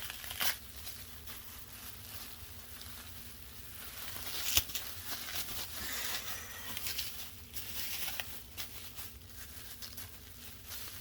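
Packing wrap being torn and crumpled by hand to free candles from a box, an irregular rustling with small clicks and one sharper knock about four and a half seconds in.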